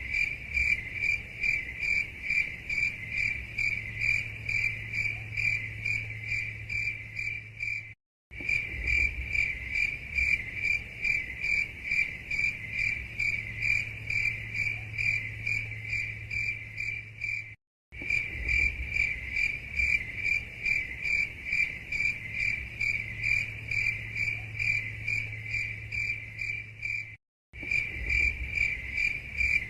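Recorded cricket chirping, a steady, evenly pulsed, high-pitched call. The recording is looped and cuts out to silence for a moment about every ten seconds, three times.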